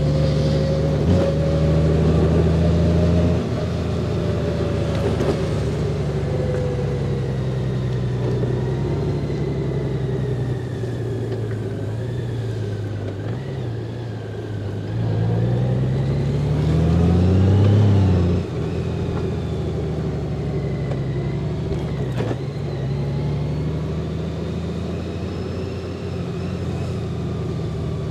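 Honda Gold Wing's flat-six engine running at low speed, heard from the rider's seat. The steady engine note eases off about three seconds in. Around the middle it rises as the bike accelerates, then drops off suddenly and settles back to a steady low-speed run.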